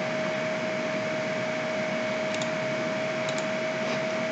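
Steady background hiss from the recording's microphone, with a faint steady tone running through it and a few faint clicks.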